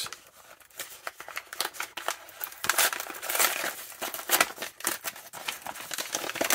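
Paper accessory bag from a toy package being opened and handled: crinkling and rustling paper with many irregular crackles.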